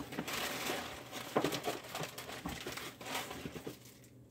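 Rustling with scattered light clicks and knocks as leather strips are handled and stuffed into a storage compartment, dying down near the end.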